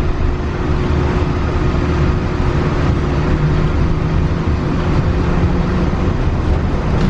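Walt Disney World monorail running at a steady speed: a loud, even rumble with a steady motor hum over it.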